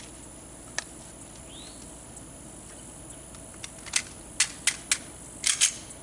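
Sharp metallic clicks of a handgun being handled: a single click about a second in, then a quick series of clicks and clacks over the last two and a half seconds.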